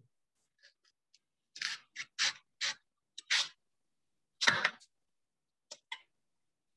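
Kitchen knife drawn lengthwise through a raw leek, shredding it into thin strands: a run of about eight short, crisp cutting strokes with pauses between, the loudest about four and a half seconds in.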